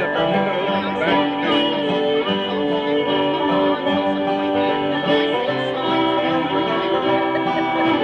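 Bluegrass band playing an instrumental break with banjo, guitar, fiddle and bass, and no singing.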